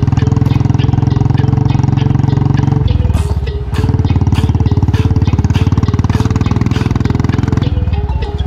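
Motorcycle engine running while the bike is ridden, its exhaust pulsing steadily. The engine note dips briefly about three seconds in and again near the end.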